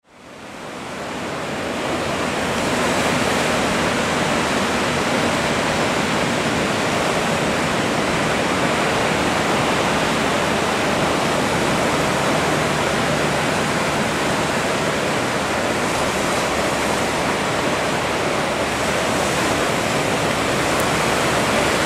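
Ocean surf: a steady rush of small waves breaking and washing, fading in over the first two seconds.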